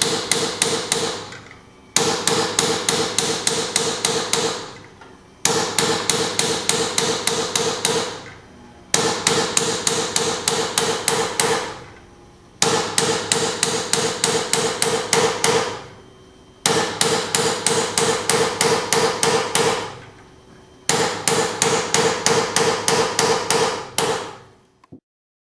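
Hand-stitching a steel rasp: a hammer taps the hand-held cutting punch into the blank, raising one tooth per blow. The strikes come in quick runs of about five a second, each with a ringing metallic note, with seven runs separated by short pauses. The strikes stop near the end.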